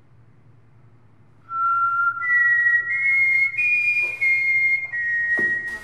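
A person whistling a slow tune of long held notes, starting about a second and a half in and stepping up and down in pitch, over a low steady hum. A short knock sounds near the end.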